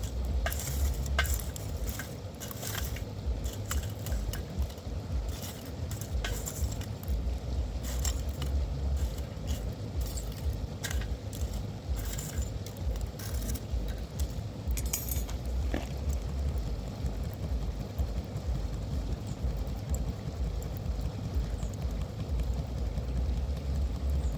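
Scattered light clinks and taps of metal kitchen utensils, frequent in the first two-thirds and then thinning out, over a steady low rumble.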